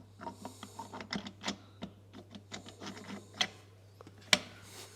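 Irregular clicks and light knocks of engine bearing caps and hand tools being handled while the caps are fitted to the crankcase, with one sharp, louder click about four seconds in.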